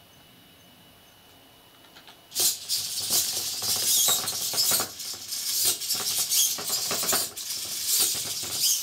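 Hobby servo motors working a small 3D-printed plastic crawling robot, its parts clattering and scraping on a wooden floor in quick, irregular clicks and rattles that start about two seconds in.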